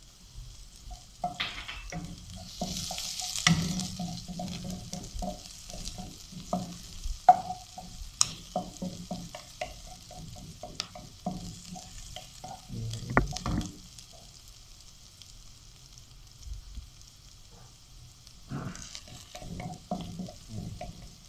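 Garlic, ginger and green chillies sizzling in hot oil in a non-stick wok, with a wooden spatula stirring and knocking against the pan. The stirring pauses for a few seconds past the middle and resumes near the end.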